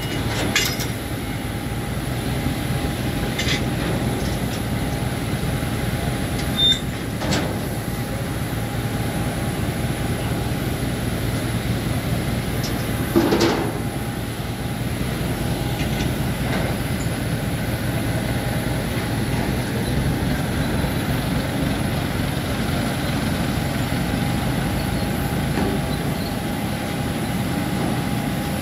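Steady mechanical hum of airport apron machinery, with a thin constant whine over it. A few brief clicks and knocks cut in, the loudest about thirteen seconds in.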